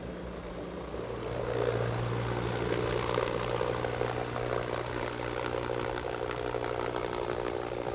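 Agusta A129 Mangusta attack helicopter in flight: steady rotor and twin-turboshaft engine noise over a low hum, growing louder about a second in as it passes close.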